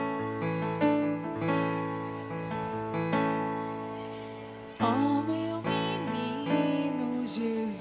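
Instrumental song introduction on a keyboard: held piano-like chords, changing every second or so. About five seconds in, a sliding, wavering melody line enters above them.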